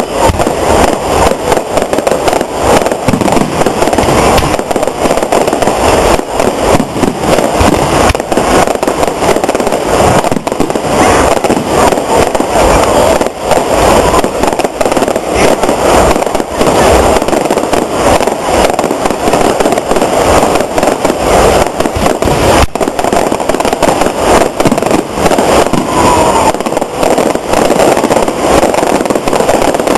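Fireworks display: a dense, unbroken barrage of rapid bangs and crackles.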